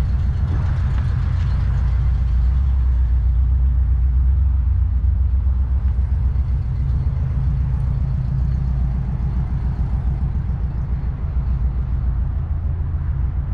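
A vehicle engine idling steadily, a continuous low rumble.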